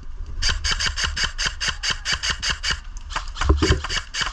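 Airsoft gun firing in rapid automatic bursts: a fast, even string of snapping shots about eight a second for over two seconds, then a few more spaced shots. Wind rumbles on the microphone underneath.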